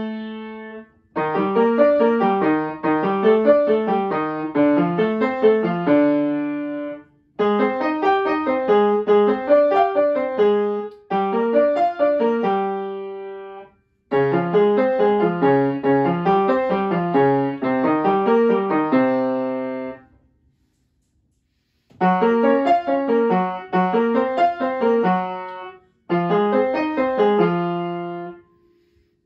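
Upright piano played: phrases of fast notes that run up and down in repeating patterns, each a few seconds long, separated by brief pauses, the longest about two-thirds of the way through.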